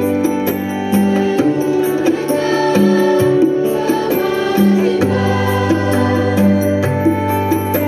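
Massed school choir singing an Indonesian patriotic song in sustained chords, accompanied by an electronic keyboard holding steady bass notes with a light regular beat.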